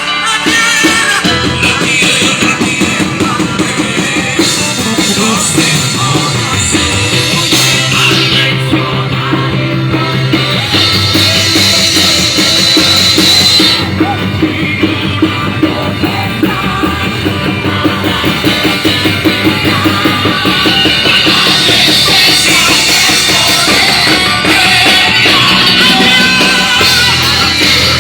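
Live worship band playing an up-tempo rock-style song, loud, with a drum kit driving the beat and singing over it.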